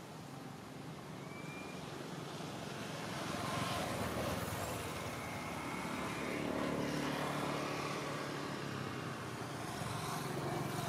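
A motor vehicle going by with its engine running, growing louder about three seconds in.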